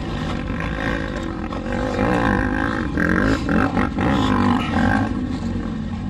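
Injured motocross rider groaning in pain after a crash, a run of drawn-out moans that rise and fall in pitch, strongest in the middle stretch.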